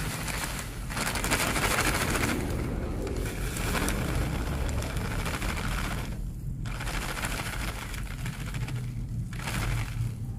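Granulated sugar pouring from a plastic bag into a plastic tub, a steady gritty patter of many tiny ticks that stops briefly about six seconds in.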